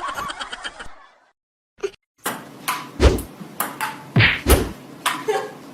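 Music stops about a second in. After a brief silence comes a string of sharp knocks, with heavier thuds around the middle.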